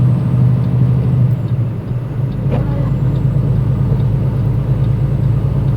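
Semi-truck engine and road noise as a steady low drone inside the cab, with a deeper rumble coming in about two seconds in.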